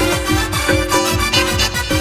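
Live band music for a Santali song: a fast, steady drum beat under a held keyboard melody.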